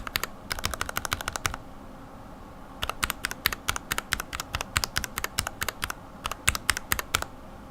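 Mechanical keyboard fitted with lubed linear switches being pressed rapidly, a fast run of clacking keystrokes. The keystrokes pause about a second and a half in, then start again about three seconds in and stop shortly before the end.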